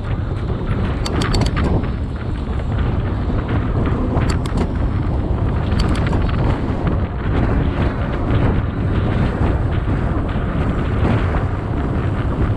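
Wind buffeting an action camera's microphone while riding a mountain bike at speed on a paved road, a steady heavy rumble. A few sharp clicks sound in the first half.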